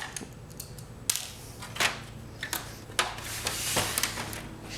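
A screwdriver working a screw deep inside an Epson 1430 inkjet printer's frame. It makes scattered sharp clicks and knocks against plastic and metal, with a brief scraping rasp about three and a half seconds in.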